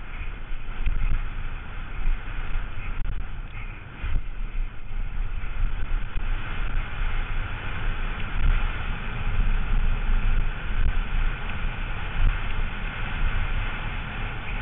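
Downhill mountain bike descending a loose dirt trail at speed: wind buffeting the bike-mounted camera's microphone in a heavy low rumble over the hiss of tyres on dirt, with a few light rattles from the bike.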